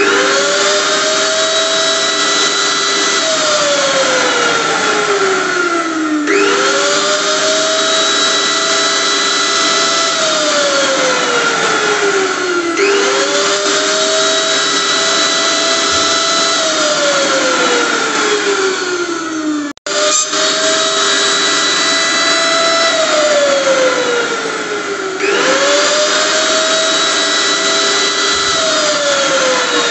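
Electric blender motor worked in repeated pulses. Each time it quickly whirs up to speed, runs steadily for a few seconds, then is switched off and its whine falls as it spins down. It starts again about every six and a half seconds, five times in all, with a very brief cut-out near the two-thirds mark.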